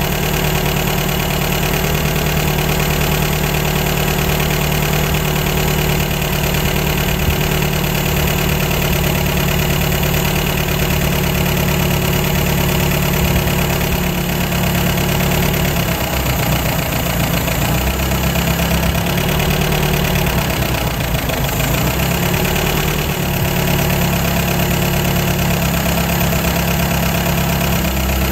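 1953 MG TD's 1250 cc XPAG four-cylinder engine idling on twin SU carburetors while the mixture is being adjusted. The idle note wavers and dips about two-thirds of the way through and again a few seconds later, then settles. The owner judges the mixture still too lean.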